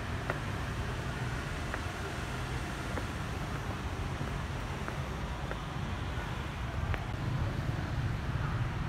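Steady low outdoor background rumble of distant traffic and wind, with a few faint ticks scattered through it.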